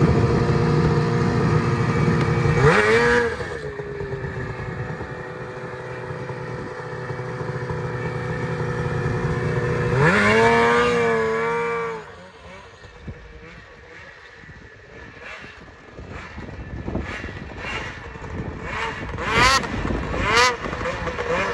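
Ski-Doo 600RS snowmobile's two-stroke engine idling, with a quick throttle blip about three seconds in and a longer rev around ten seconds. Near the end come several short revs in a row as the sled is worked through deep snow.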